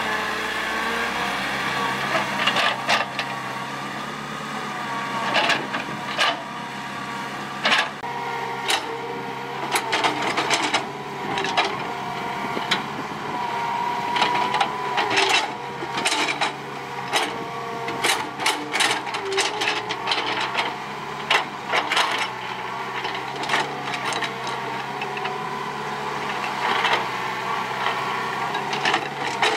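Hitachi EX120 hydraulic excavator working: its diesel engine runs steadily under a whine that rises and falls. From a couple of seconds in, frequent sharp clacks and knocks of the bucket scraping and dropping soil and stones.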